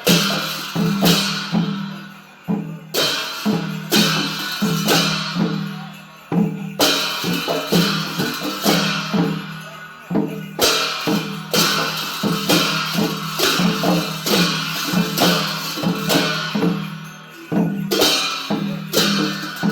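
Traditional Newar drum and cymbal music of the kind that accompanies a Lakhe dance. A fast, steady drum rhythm runs under loud cymbal clashes that come every second or two and ring on.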